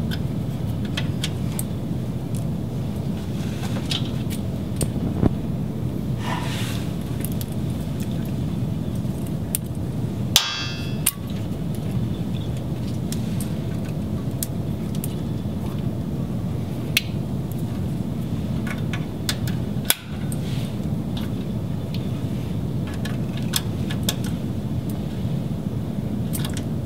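Steady low hum in the background, with scattered small plastic clicks and knocks as MPO fiber connectors are handled and pushed into the ports of a fiber chassis blade. A single short metallic clang rings out about ten seconds in.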